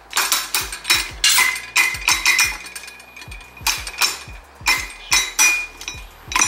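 Crank of an all-metal Beaver gumball machine being turned by hand, the coin mechanism's gears and the metal dispenser wheel clicking and clinking, metal on metal. A quick irregular run of sharp metallic clinks with a short ring, pausing for about a second midway.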